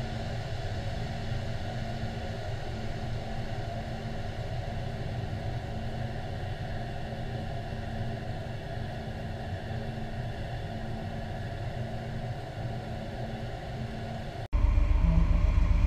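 A steady low engine drone and rumble, as heard from on board an aircraft over the sea. Near the end it cuts off suddenly into a louder rumble.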